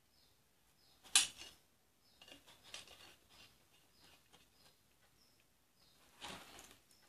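Handling noise from assembling a metal-and-plastic handheld camera stabilizer over foam packing: a sharp click about a second in, then scattered small clicks and rustles, with another rustle near the end. Faint, short, high chirps recur in the background.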